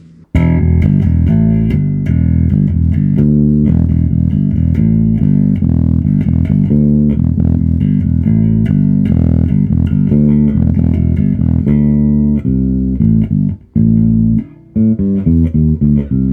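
Electric bass guitar played through an Ashen APG1000.2 bass amp head with its bass control turned up full, riffing. It stops briefly twice near the end and finishes with short, choppy notes.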